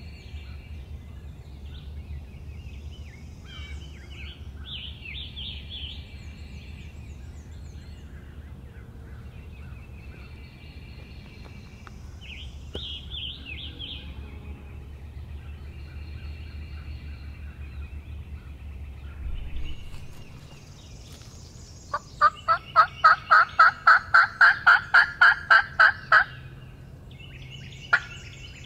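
A turkey call sends out a fast, loud series of about sixteen evenly spaced hen-turkey yelps, roughly four a second, starting about two-thirds of the way in, with one more note near the end. Before it, songbirds chirp faintly over a low steady hum.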